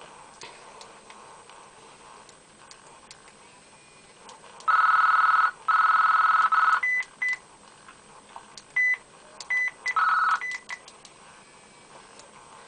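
Cell phone electronic beep tones. After a few quiet seconds come two long steady beeps, then a string of short, higher beeps broken by one more long beep.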